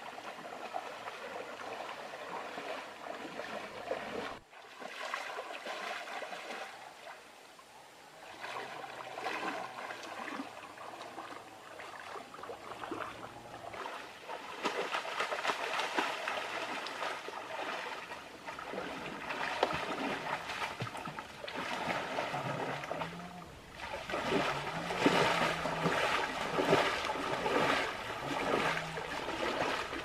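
Water splashing and churning as people wade and thrash through a shallow stream, over the stream's running water. The splashing grows louder in the second half.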